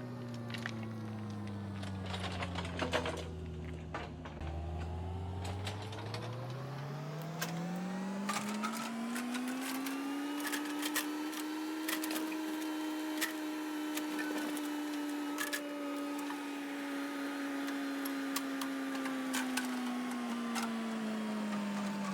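Excavator's diesel engine running low, then revving up over a few seconds and holding at high revs under load, with scattered sharp cracks and knocks.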